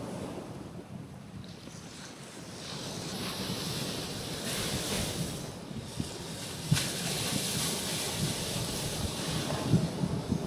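Small ocean waves breaking and washing over a rocky shoreline, the surf hiss swelling from about three seconds in. Wind buffets the microphone with low rumbles.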